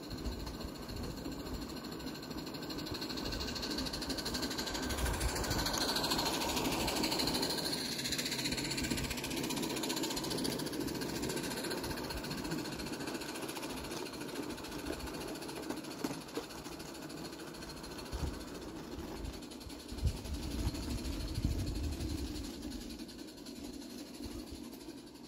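Roundhouse Billy live-steam garden locomotive running past with a rapid, rhythmic mechanical beat and steam noise. It grows louder as it nears, then fades as it moves away, with a few sharp knocks near the end.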